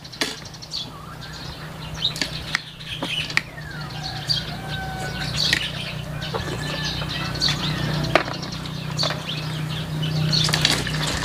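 Eating and handling sounds from a seashell mukbang: scattered small clicks and taps of shells and utensils, with a few short chirps over a steady low hum.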